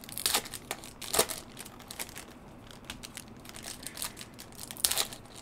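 Foil wrapper of a Merlin Chrome trading-card pack being torn open and crinkled by hand: a string of crackling rustles, loudest about a second in and near the end.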